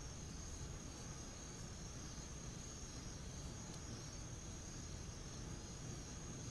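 Faint, steady night ambience of crickets chirring in one continuous high-pitched trill, over a low background hum.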